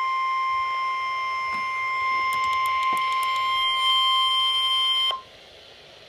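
Emergency Alert System attention signal: one steady alarm tone that cuts off abruptly about five seconds in, leaving a faint hiss.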